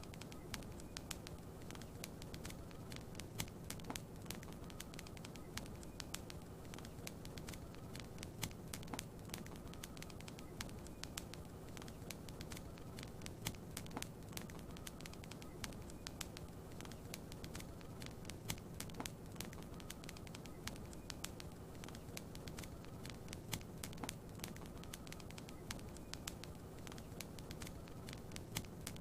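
Wood fire crackling in a fireplace, with many sharp, irregular pops and snaps over a steady low hiss.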